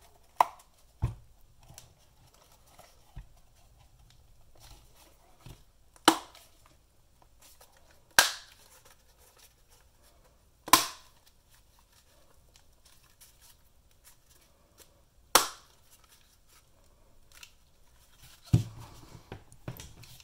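The snap clips of a UE Roll speaker's casing clicking into place one by one as the halves are pressed together around the edge: about seven sharp clicks a few seconds apart, with faint handling noise between.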